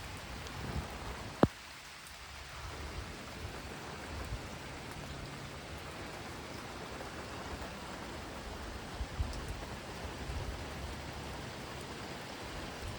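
Steady heavy rain falling, an even hiss, with one sharp knock about a second and a half in.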